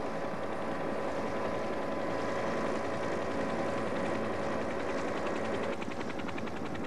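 Helicopter engine and rotor running steadily: a constant drone with a fast, even pulsing beat.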